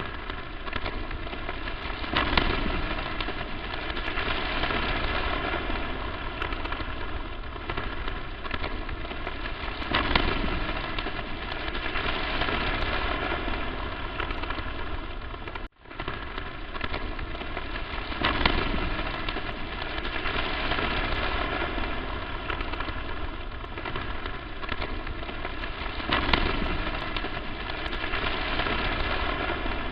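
Crackling static noise: a dense, steady hiss with a faint buzzing undertone, swelling louder about every eight seconds. It cuts out for an instant about halfway through.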